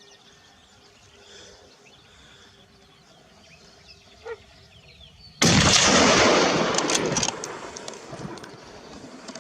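Faint outdoor quiet, then about five and a half seconds in a sudden loud gunshot whose rolling echo stays loud for a couple of seconds before fading.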